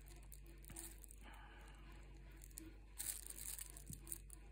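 Faint crinkling rustles of a thin plastic glove as gloved fingers handle a foil trading card, a few soft rustles about a second in and again about three seconds in, over a low steady room hum.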